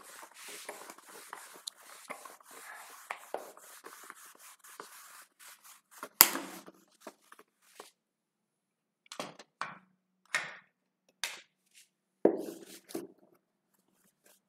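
Whiteboard being erased with a hand-held duster: a faint scratchy rubbing in quick small strokes, a sharp knock about six seconds in, then several separate short wiping strokes.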